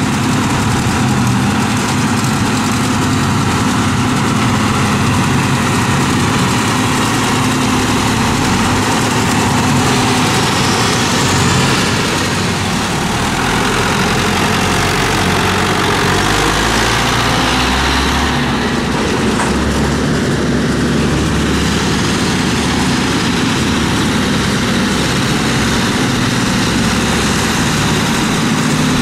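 Diesel tractor engines running with a trailed forage harvester chopping grass and blowing it into a silage trailer: a loud, steady mechanical din with a low engine hum underneath.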